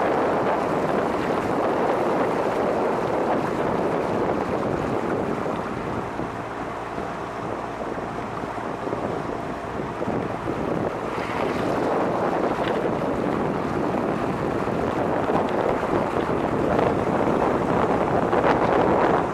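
Small tour boat's outboard motor running steadily under way, with wind buffeting the microphone.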